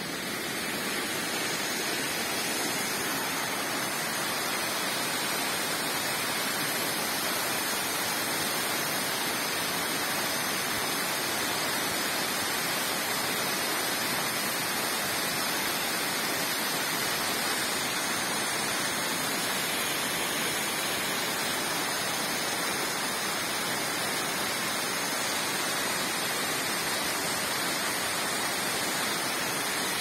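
Cascade waterfall falling steadily: an even, continuous rush of water that swells slightly in the first second and then holds level.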